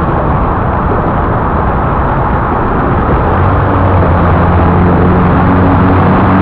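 Loud road traffic noise with a motor vehicle engine running close by; about three seconds in, a steady low engine hum comes in and the sound grows slightly louder.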